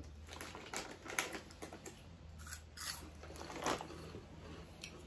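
Crunchy cheese-flavoured snack being bitten and chewed, irregular crunches with a couple of louder bites.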